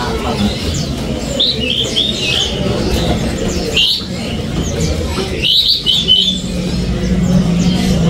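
Caged songbird giving short, sharp high chirps in three bursts, about a second and a half in, near four seconds and again around five and a half seconds, over a steady low background hum.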